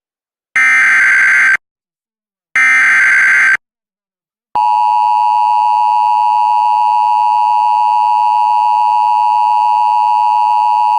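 Emergency Alert System broadcast tones: two one-second bursts of the SAME digital header's data tones, a second apart. About four and a half seconds in, the steady two-tone attention signal starts and holds, heralding a National Weather Service severe thunderstorm warning.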